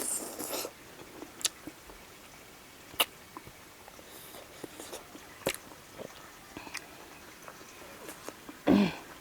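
Close-up eating sounds of a person eating chicken and greens: chewing and mouth smacks, with a few sharp clicks and a louder short burst near the end.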